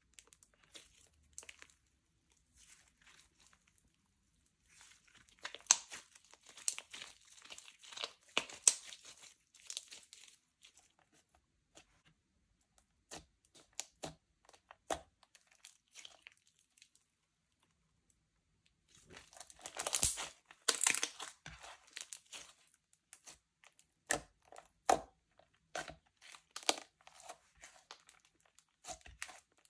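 Slime being stretched, folded and pressed by hand, giving sticky crackles and pops. There are two longer spells of dense crackling, a few seconds in and again about two-thirds through, with scattered single pops between and after them.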